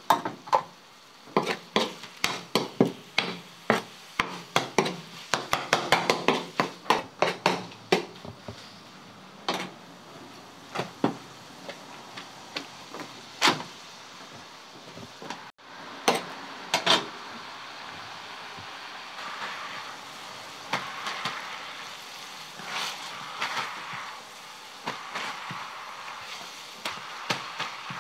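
Metal spatula clacking against a large steel tantuni pan: a quick run of sharp knocks for the first eight seconds or so, then a few scattered knocks, then softer rustling and clatter of meat and flatbread being handled on the pan.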